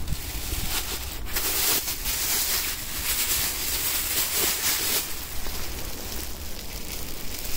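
Thin white plastic carrier bag rustling and crinkling as it is handled around a carved pumpkin, in uneven bursts that are strongest about one and a half and four seconds in.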